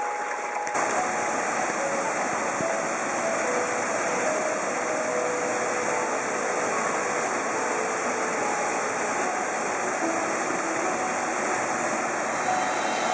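Water pouring steadily over a mill's sluice weir and splashing into the pool below.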